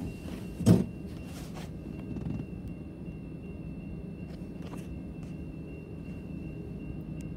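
A low, steady rumble of an approaching CN freight train, under a faint steady high tone. There is one sharp thump about a second in.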